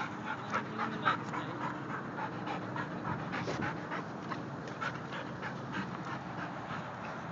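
A Labrador retriever panting with her mouth open, a quick run of short breaths, the sharpest about a second in.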